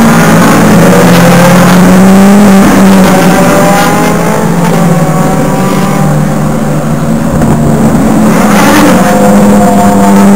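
GT racing car engines accelerating out of a corner, one car after another, their pitch rising through the gears, with another car arriving near the end.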